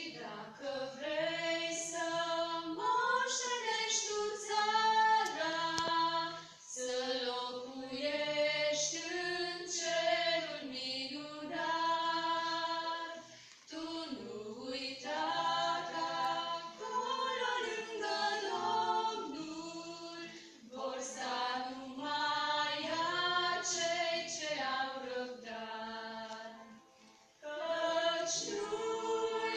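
A small group of women singing a hymn together, seemingly unaccompanied, in long sustained phrases with brief pauses between them, about every seven seconds.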